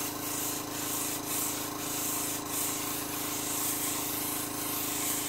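Airbrush spraying paint with a steady hiss, over the constant hum of the small air compressor that feeds it.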